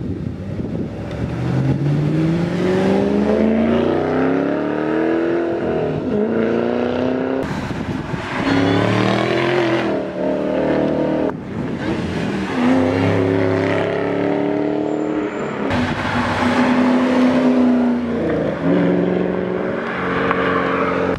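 2008 Shelby GT500KR's supercharged 5.4-litre V8 accelerating hard, heard from outside the car. The engine note rises in pitch about five times and drops back at each gear change.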